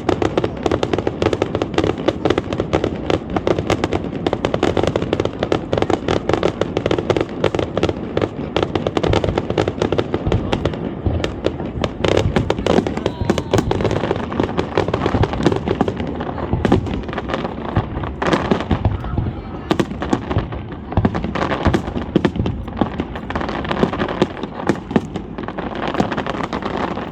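Aerial fireworks display: a dense, continuous barrage of bangs and crackling bursts, many a second, with no break.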